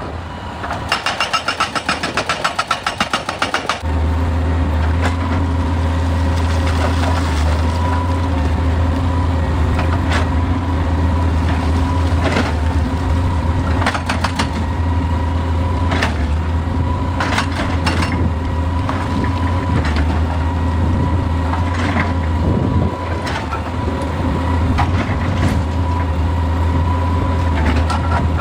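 Heavy excavator's diesel engine and machinery: a rapid, even rattle for about three seconds, then the engine settles into a steady low drone about four seconds in, with sharp metallic clanks every couple of seconds.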